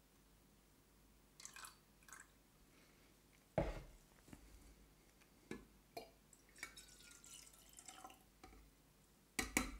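Deionized water trickling and dripping as it is poured from a glass measuring cylinder into a brown glass bottle. A plastic jug is set down with a sharp knock about a third of the way in, followed by a few light clicks, and glass clinks near the end.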